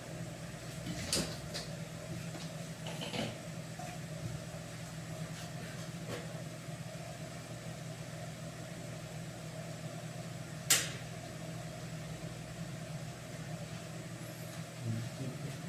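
A steady low mechanical hum, with a few light knocks and clinks of kitchen utensils and one sharp clack about eleven seconds in.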